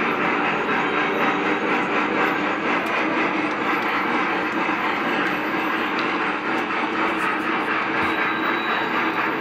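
Lionel O-gauge model trains running on the layout's three-rail track: a steady rumble of motors and wheels on the rails.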